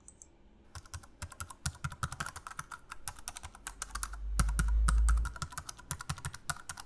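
Computer keyboard typing sound effect: a fast, irregular run of key clicks that starts about a second in, with a brief low rumble underneath about four seconds in.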